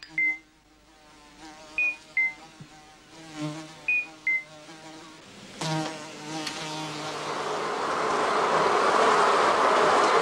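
Flies buzzing: a single fly's wavering buzz, broken by three pairs of short high two-note beeps, then from about seven seconds a whole swarm whose buzz swells into a loud, dense drone.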